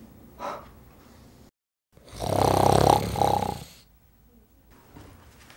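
A man snoring: one long, loud snore starting about two seconds in.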